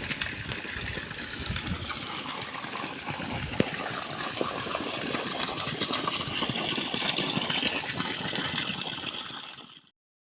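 Small engine running steadily, with water splashing from the newly drilled bore well; it fades out near the end.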